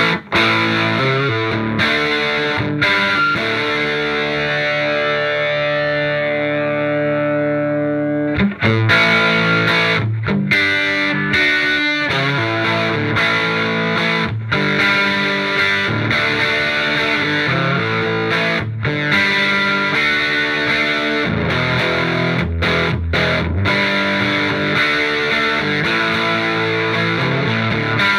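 Overdriven electric guitar: a 1987 Gibson Les Paul through a hand-wired Marshall JTM45 Plexi clone head with KT66 power tubes and a 1x12 cabinet, with both jumpered channels' gain at about 6. A chord rings out and sustains for about eight seconds, then chords and riffs are played with hard pick attacks.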